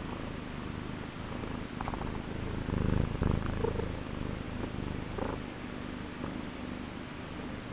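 Domestic cat purring vigorously close to the microphone, a steady rapid low rumble that swells louder about three seconds in.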